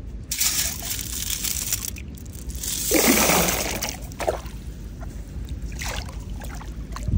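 Shallow river water sloshing and trickling around a perforated metal sand scoop, with a louder splash about three seconds in as the scoop's load of rocks and shells is tipped back into the water, and smaller splashes after it.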